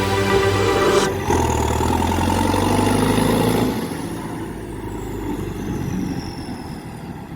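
David Brown 1490 tractor's diesel engine running, growing quieter from about four seconds in.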